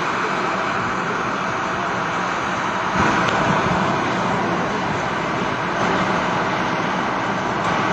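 Steady outdoor background noise: an even hiss with no single clear source and no speech, swelling a little about three seconds in.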